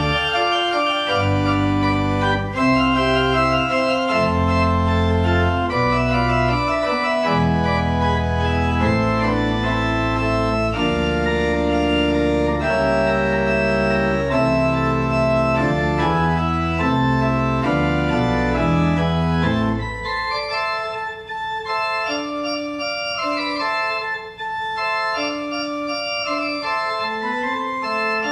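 Church organ playing the postlude in full sustained chords over a deep pedal bass. About two-thirds of the way through the bass drops out, leaving lighter chords in the upper register.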